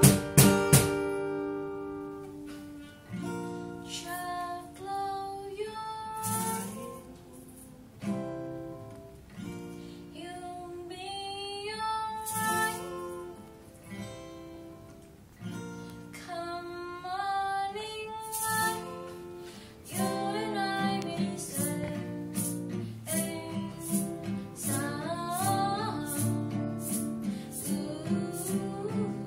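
A song with plucked and strummed acoustic guitar and a female voice singing phrases over it.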